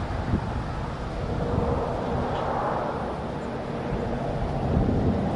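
Steady vehicle engine drone with wind buffeting the microphone.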